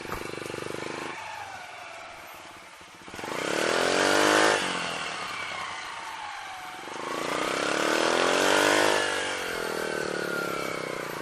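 Yamaha YBR 125 single-cylinder motorcycle engine under way, revving up twice, about three and seven seconds in, each time climbing in pitch and then easing back as the throttle comes off.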